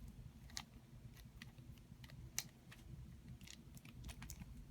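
Faint, irregular plastic clicks of a 1x1x3 cuboid puzzle being turned by hand while it is solved, with one sharper click about halfway through.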